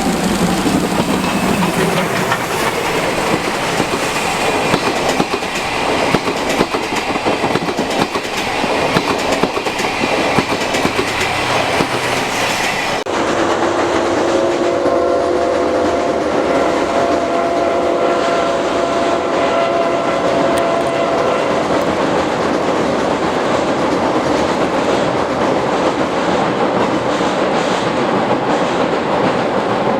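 Steam locomotive C57 180 hauling its train past, its exhaust beats and the train's wheels on the rails making a dense, rapid clatter. About halfway through the sound changes abruptly to the train crossing a steel bridge, with a steady ringing of several tones that slowly fades.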